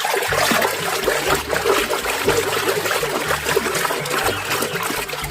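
Water running and splashing steadily onto a mud-covered toy as it is rinsed clean.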